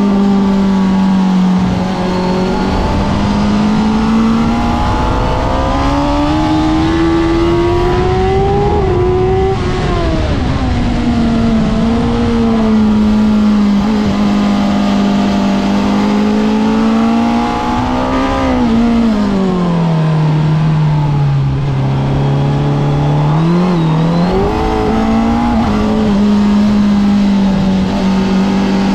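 Sport motorcycle engine heard onboard while riding a lap, its note rising and falling with the throttle. The pitch climbs for several seconds, drops sharply about nine seconds in and rises again around eighteen seconds. It then falls to its lowest, with a quick blip about twenty-four seconds in, before settling.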